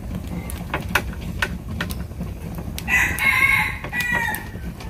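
A rooster crowing once, about three seconds in, lasting over a second, over light scattered clicks and knocks.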